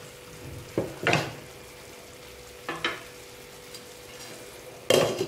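Wooden spatula stirring mushroom masala in a stainless steel frying pan, a few scraping strokes over a gentle frying sizzle. Near the end, the loudest sound: the pan's glass lid set down on it with a clink.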